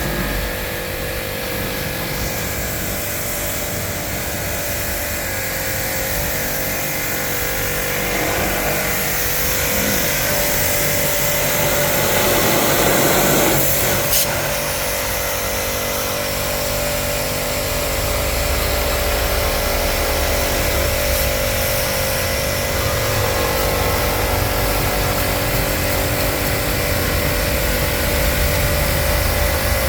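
A motor running steadily with a continuous hiss and a steady hum, swelling briefly near the middle.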